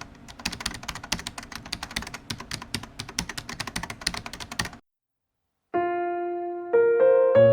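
Rapid, irregular typing-like clicks for almost five seconds, stopping abruptly. After about a second of silence, piano music begins with sustained notes and chords.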